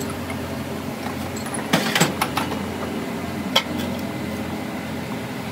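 Sharp metallic clinks as a lathe's three-jaw chuck is loosened with a chuck key and a truck's spiral-bevel crown pinion shaft is taken out of it: a quick cluster of clicks about two seconds in and one more knock a little later, over a steady machine hum.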